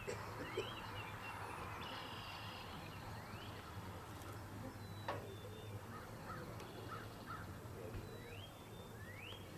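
Birds calling: short upward-sweeping calls repeated several times, with a few fainter chirps, over a steady low hum.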